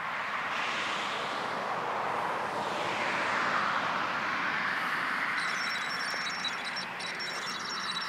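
Image stabilizer noise from a Canon EF-S 18-135mm STM lens picked up by the camera's built-in microphone: a rushing hiss that swells and fades in slow waves, joined about five seconds in by a high, fluttering whine. The uploader calls it a weird noise that appears whenever the stabilizer is on.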